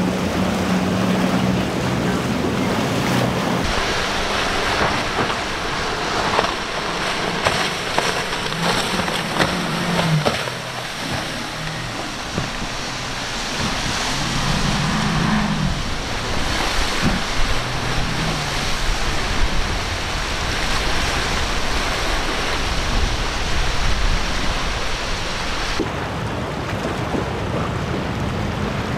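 Powerboats' outboard engines running through rough inlet water under a steady rush of waves, wake spray and wind on the microphone. The engine hum is strongest in the first few seconds, and an engine rises and falls in pitch as a boat passes near the middle.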